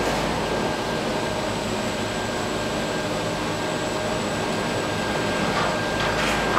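Chairlift terminal machinery running with a steady mechanical hum and whir, carrying a few constant tones.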